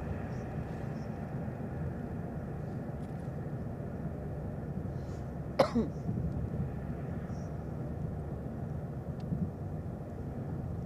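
Steady low rumble of a moving car's engine and tyres heard from inside the cabin, with a single sharp click about halfway through.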